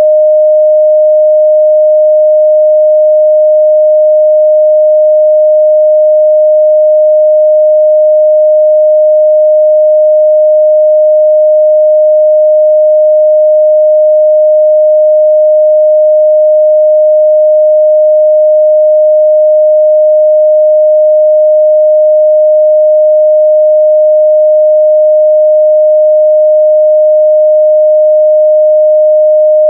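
Pure 614 Hz sine-wave test tone, one steady unchanging pitch held at a constant loud level, used to check speaker and headphone midrange response.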